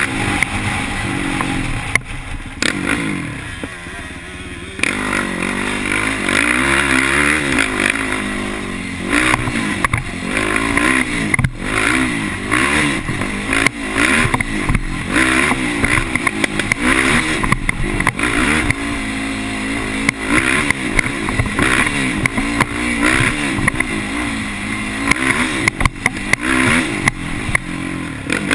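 Sport ATV engine running hard along a dirt trail, its pitch rising and falling as the throttle is worked. It eases off briefly a few seconds in. Knocks and rattles come from the quad going over bumps.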